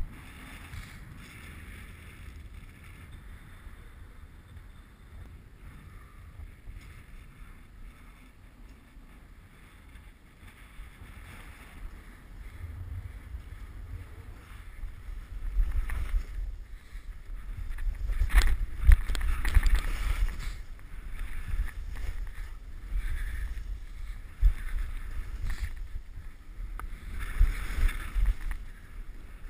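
Skis hissing over snow, with wind rumbling against the action camera's microphone. Quieter for the first dozen seconds, then louder and rougher with swishing turns as speed builds, and one sharp scrape or knock about halfway through.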